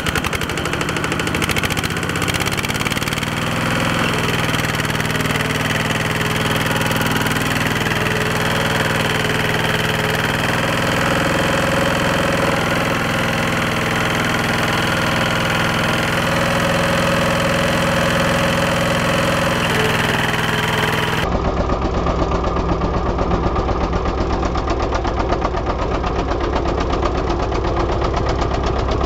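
Single-cylinder diesel engine of a two-wheel walking tractor running hard under load, dragging a loaded trailer through mud. Its pitch climbs over the first couple of seconds, then holds steady. About three-quarters through, the sound changes abruptly to a deeper, more distinctly pulsing chug.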